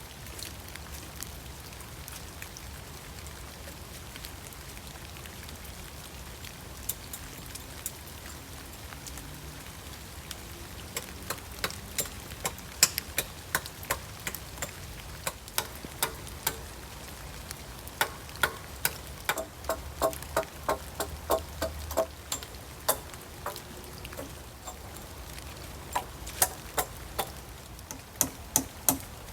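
Steady heavy rain, and from about ten seconds in, a hammer driving nails in runs of quick blows, some strikes ringing briefly as the nail goes into a branch.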